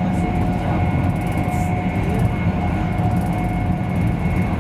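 Interior running noise of a Class 390 Pendolino electric train at speed: a steady low rumble of wheels on rail with a faint steady whine over it.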